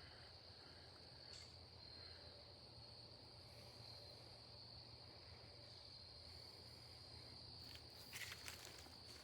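Faint, steady high-pitched trilling of crickets, with a few soft rustles or clicks near the end.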